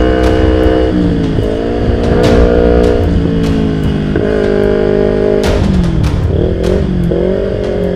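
Kawasaki Ninja 250 FI parallel-twin engine running under way on the road. Its pitch holds steady, then drops and climbs again several times as the throttle and gears change.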